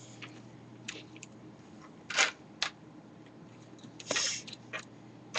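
Plastic pieces of a V-Cube 5 puzzle cube clicking into place by hand, a scattering of sharp clicks with two brief clattering rattles.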